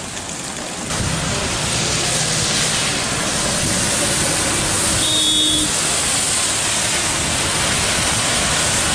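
Heavy rain falling, a dense steady hiss that gets louder about a second in.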